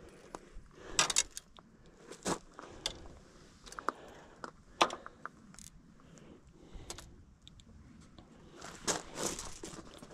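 Scattered light clicks and clinks of fishing rods and reels being handled and set down, with a short cluster of rattling clicks about nine seconds in.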